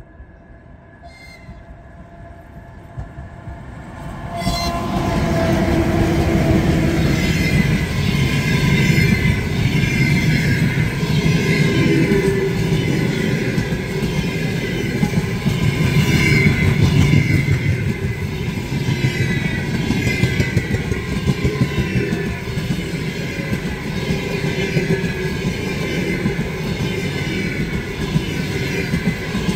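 A ChS7 electric locomotive approaches and passes, its sound swelling over the first few seconds, with a whine that drops in pitch as it goes by. Then a long train of passenger coaches rolls past, wheels clattering over the track.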